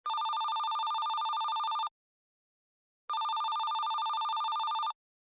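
Telephone ringing twice: each ring lasts just under two seconds as a trilling double tone, with about a second's pause between them.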